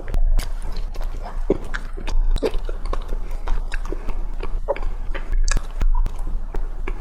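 Close-miked chewing of pork floss bread, with many small irregular mouth clicks and smacks over a steady low hum.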